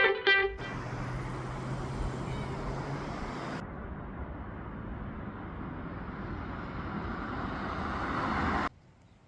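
Steady rushing outdoor background noise, with a low hum for the first two or three seconds; it cuts off suddenly near the end.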